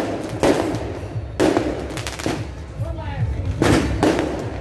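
Firecrackers going off in a string of loud, separate bangs, about five of them, roughly one a second.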